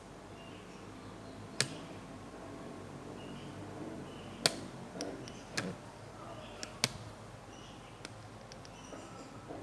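Small wild birds at a feeding spot: faint, short high chirps scattered throughout, with about six sharp, irregularly spaced taps.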